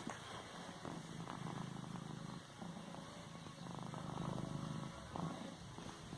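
Domestic cat purring steadily in long stretches, with brief pauses for breath about every two seconds.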